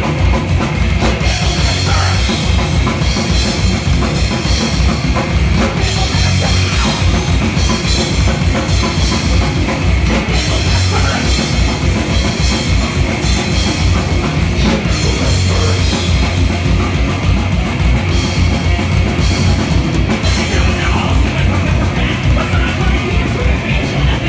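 Live heavy metal band playing loud and fast: distorted electric guitars over dense, rapid drumming, heard close up from among the players.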